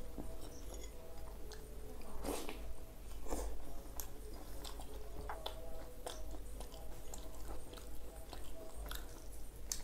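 Close-up mouth sounds of a man eating paratha dipped in egg tadka by hand: chewing and smacking, with scattered sharp clicks, over a low steady hum.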